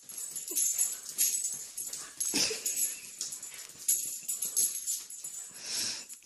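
A puppy playing and spinning on a rug, its collar jingling irregularly, with scuffling and a few short dog vocal sounds; the loudest burst comes about two and a half seconds in.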